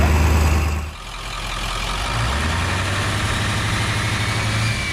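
Vehicle engine running with a loud low hum that drops away suddenly about a second in, followed by a quieter engine running steadily.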